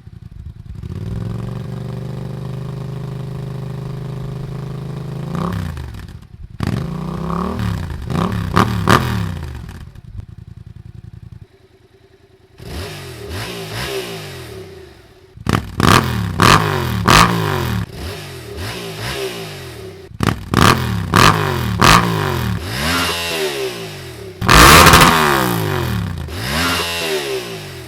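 Yamaha FZ-07's parallel-twin engine idling steadily through its exhaust, then revved again and again in blips that rise and fall in pitch. Several revs peak sharply at the top as the engine bounces off the rev limiter.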